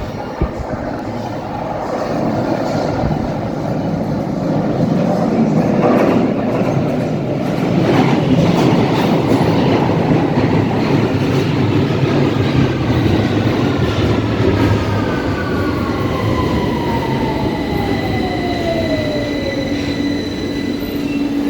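Victoria line 2009 Stock tube train (Bombardier Movia) arriving: the wheels rumble on the rails with a couple of sharp clacks, then the traction motors' whine falls steadily in pitch as the train brakes. A steady low hum is left near the end.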